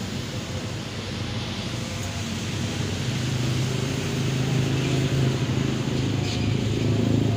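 An engine running steadily at idle, a low hum that grows somewhat louder from about three seconds in.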